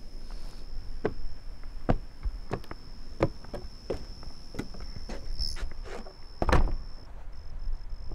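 Footsteps on a wooden porch, one every half-second or so, then a heavy door thump about six and a half seconds in.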